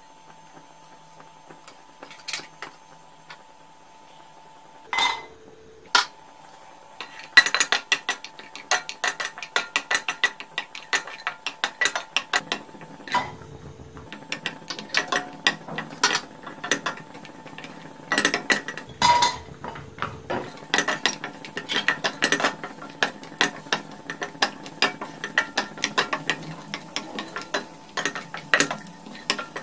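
Wooden spatula stirring and scraping nuts and raisins frying in ghee in a stainless steel pan: a dense run of irregular clicks and clacks from about seven seconds in. Before that come a few single clinks of a metal spoon against the pan.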